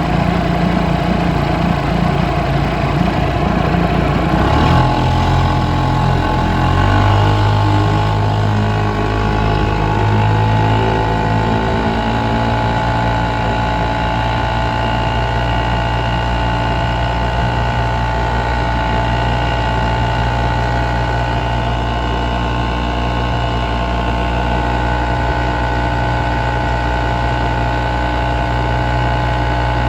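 1947 Mercury KE3 Comet single-cylinder two-stroke outboard running steadily under way; its note shifts between about four and seven seconds in, then holds even.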